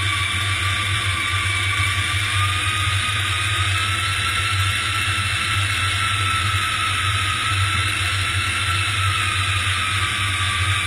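Airliner on final approach with its landing gear down: a steady rush of jet engine noise and airflow, with a low rumble and two whining tones that drift slowly in pitch.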